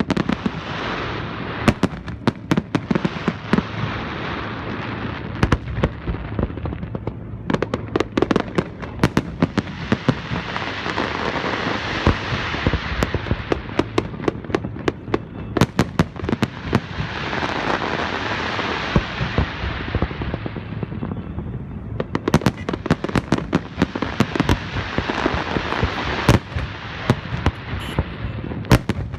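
Fireworks display: a fast, irregular series of sharp shell bursts over a dense crackle that swells and dies away in waves.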